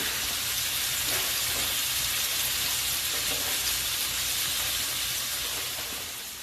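Salmon pieces frying in a pan, a steady sizzle that fades out near the end.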